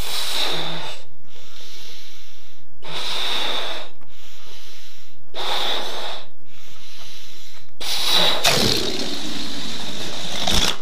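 A man blowing up a latex balloon with three hard puffs, drawing breath between them. About eight seconds in, the balloon is let go and its air rushes out in a long hiss that falls in pitch, ending in a sharp tap.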